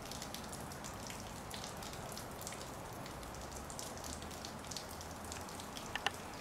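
Faint, steady outdoor background hiss with scattered soft ticks and a couple of small clicks near the end.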